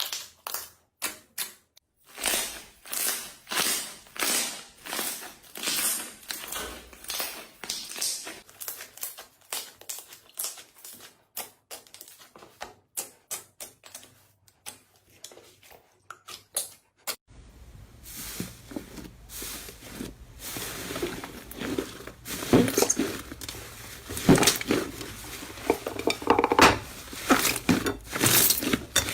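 Slime being squished and pressed by hand, making a rapid run of sticky clicks and pops. A little over halfway through the sound changes: a low hum comes in and the squelches get fuller and louder.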